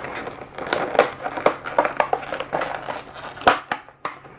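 Product packaging being handled and opened: irregular crinkling, rustling and small snaps and clicks.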